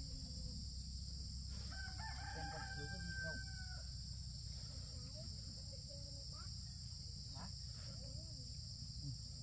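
A rooster crows once, a held call of about two seconds, faint over a steady high insect drone.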